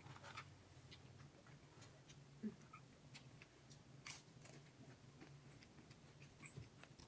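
Near silence: a faint steady low hum with scattered soft clicks, the clearest about two and a half seconds and four seconds in.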